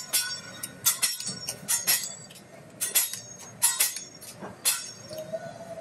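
Teppanyaki chef's metal spatula and knife clinking against each other and the steel griddle: sharp metallic clicks in quick, irregular pairs and clusters.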